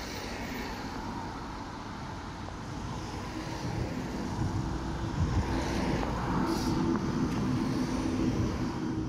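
A Siemens Combino Plus light-rail tram passing along with road traffic, cars driving by on the street beside the track. The noise grows louder about four seconds in, when a steady low hum comes in and holds.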